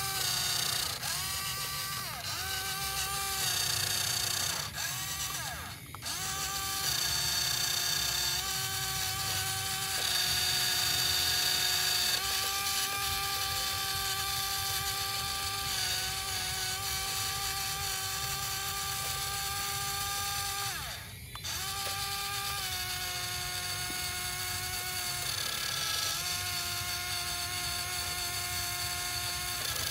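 Small electric motor of a DIY toy tractor running with a steady whine whose pitch shifts a little as the load changes. It dips out briefly about six seconds in and again about two-thirds of the way through.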